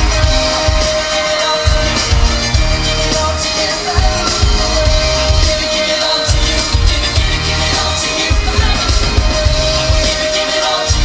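Live pop band performance played loud through a PA: a heavy bass beat under sung vocals, with some crowd noise.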